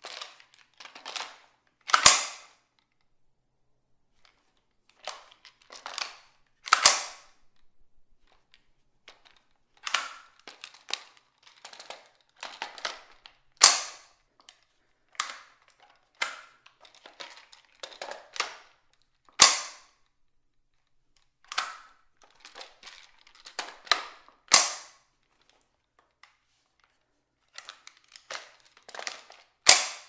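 Ruger 10/22 rifle being reloaded over and over: clusters of small metal clicks from the magazine going in and out, each followed by a sharp metallic snap of the bolt closing. Six snaps come about every five to six seconds, echoing in a tiled bathroom.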